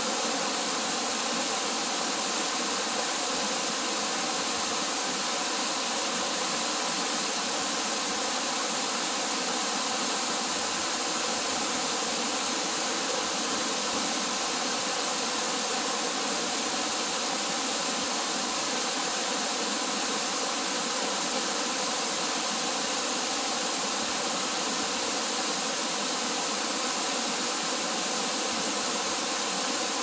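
Waterfall cascading down a rock face: a steady, unbroken rush of falling water.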